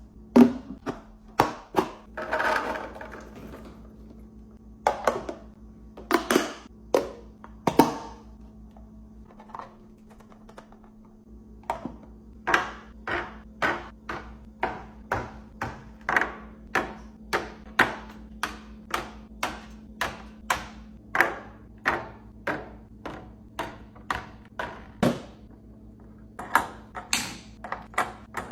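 Food containers and packages being set down one after another on fridge shelves: sharp clacks and thunks, with a brief rustle of packaging early on and a long run of quick, fairly even taps about every half second. A faint low hum runs underneath.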